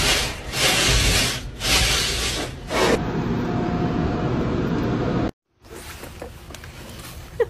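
Automatic car wash heard from inside the car: a loud rush of water spray and brushes on the car body, surging and dipping twice, then running steadier. It cuts off suddenly a little over five seconds in, leaving only faint background noise.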